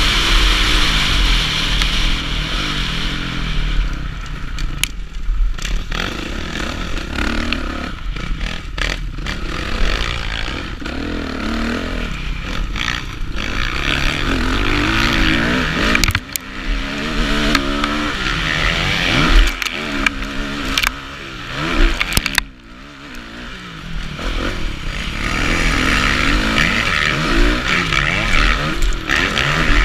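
Kawasaki KX450F four-stroke motocross bike engine revving up and down as it pulls through the gears and backs off, heard from a helmet camera with wind rush on the microphone. The throttle shuts briefly about 22 seconds in, then the engine pulls hard again, with a few clatters from the bike over the bumps.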